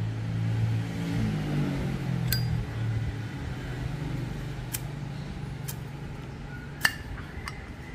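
Several sharp metallic clicks and clinks, five in all, with the loudest near the end, from vintage brass and steel Zippo lighters being handled. Under them a vehicle engine runs in the background, rising in pitch about a second in.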